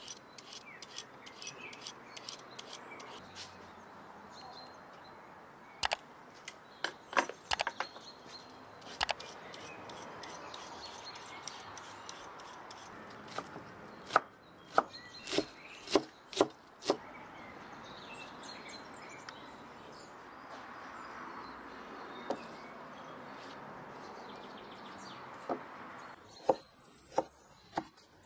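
A large cleaver-style knife chops through cucumber and tomato onto a wooden cutting board, each cut ending in a sharp knock. The chops come in short runs: a few around 6 to 9 s, about six in quick succession in the middle, and another quick series near the end.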